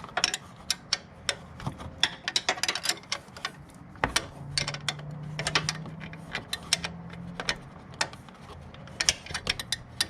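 Metal hand tools clicking and clinking in quick, irregular strokes, as when a ratchet and wrenches are used to change a belt tensioner. A faint low hum runs from about four to seven and a half seconds in.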